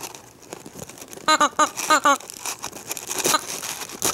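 Rubber rabbit squeeze toy (Oshaberi Doubutsu talking ball) squeezed through its plastic mesh net: about a second in it lets out four short, squeaky, voice-like squeals. Between squeezes the net and packaging crinkle under the fingers.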